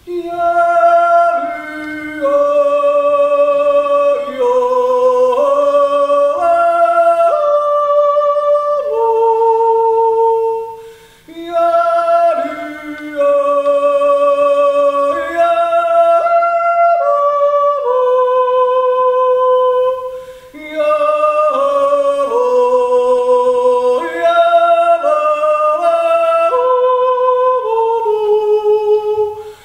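A man yodeling solo and unaccompanied, his voice leaping between low and high notes in long phrases, with short breaks for breath about eleven and twenty seconds in.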